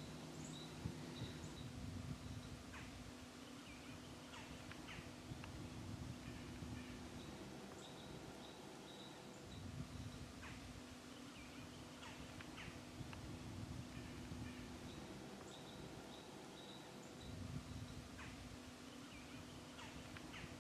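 Quiet woodland ambience: scattered short bird calls over a faint low hum that comes and goes.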